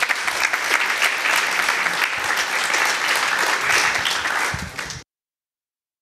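Audience applauding, many people clapping together; the applause cuts off abruptly about five seconds in.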